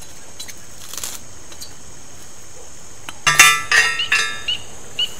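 Steel T-post driver clanking against a steel T-post: a quick run of about four ringing metal clanks a little past the middle, the first the loudest. A short high chirp then repeats about twice a second over steady insect noise.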